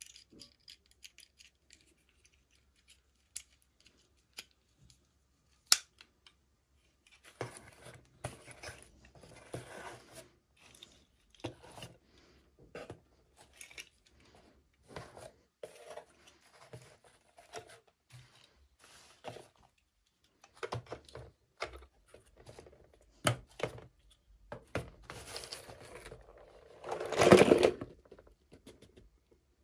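Toy doll packaging being cut and opened by hand: a few sharp clicks, then a run of short snipping, scraping and rustling sounds, with the loudest, a longer rip, near the end.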